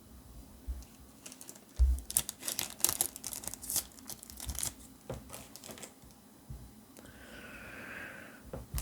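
Foil booster-pack wrappers and cards being handled: a run of small crinkles, rustles and clicks. Near the end a wavering tone sounds for about a second and a half.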